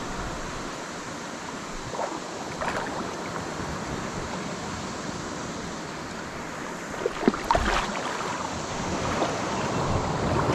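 Steady wash of water and wind noise on the microphone, with a few light knocks about two-thirds of the way through.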